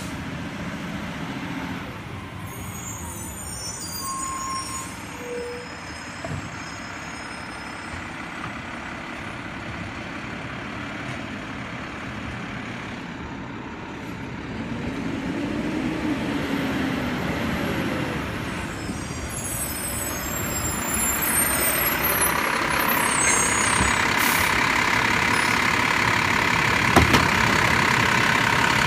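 Mack LEU garbage truck's engine running as the truck draws closer and grows louder. Near the end, its Labrie automated side-loader arm works as it grabs a wheeled bin, with one sharp clunk about two seconds before the end.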